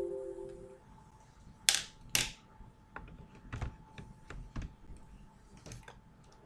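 Scattered clicks of typing on a computer keyboard, irregular, with two louder clicks about two seconds in. At the start, the tail of a ringing chime fades out within the first second.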